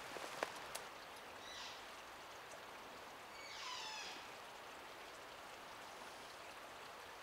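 Distant bull elk bugle: one faint, high whistling call that falls in pitch, about halfway through, over a steady quiet forest hiss. A couple of soft ticks come near the start.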